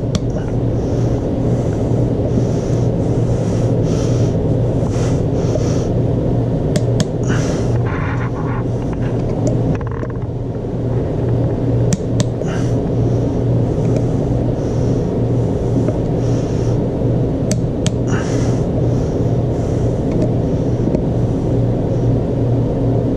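A steady low rumbling hum, with three pairs of sharp clicks a few seconds apart: a click-type torque wrench breaking as the clutch cover bolts reach their set torque.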